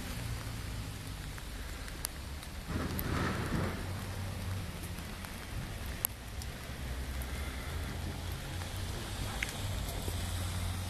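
International fire truck's engine running, a steady low rumble under a constant hiss, with a louder swell of noise about three seconds in and a few sharp clicks.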